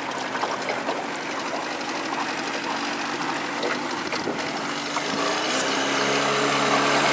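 Small boat's outboard motor running under way, with water rushing along the hull. The motor's note grows louder and fuller from about five seconds in.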